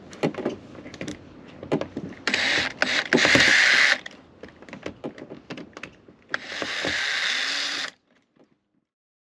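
Cordless drill/driver backing out screws: two spells of the driver's motor whirring, one about two seconds in and another about six seconds in, each lasting a second or more, with handling clicks and knocks between them. All sound stops about eight seconds in.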